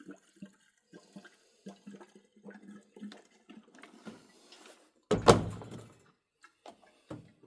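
Two-stroke fuel mix glugging from a can into a Sachs-Dolmar 133 chainsaw's fuel tank in short, irregular gurgles, with one loud knock about five seconds in.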